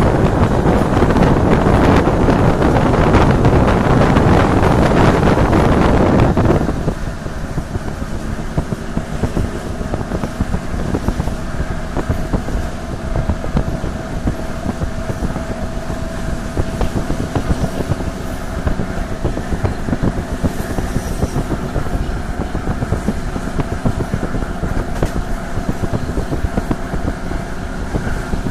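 Wind buffeting the microphone of a phone held out of a moving train's window, cutting off suddenly about six and a half seconds in. After that the train runs on steadily, with a low rumble and a steady hum.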